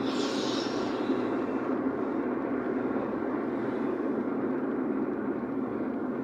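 Steady road and engine noise of a car being driven, heard from inside the cabin, with a brief rise of hiss in the first second.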